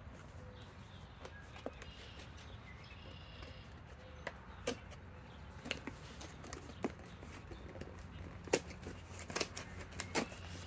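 Cardboard box being opened by hand: scattered short clicks and scrapes as the flaps and tabs are worked open, over a low steady hum.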